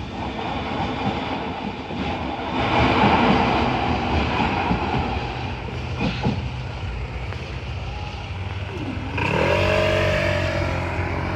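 Road traffic passing close by with a continuous rumble. About nine seconds in, one vehicle's engine rises in pitch as it pulls away and accelerates.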